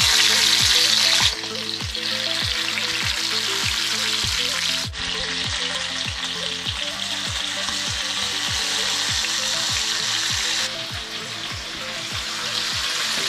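Quail shallow-frying in hot oil in a non-stick pan: a steady, loud sizzle that drops in level about a second in and shifts again a few times. Under it runs background music with a quick steady beat.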